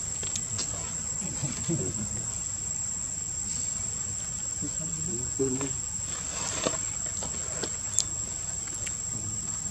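Steady, unbroken high-pitched drone of insects, with a sharp click about eight seconds in.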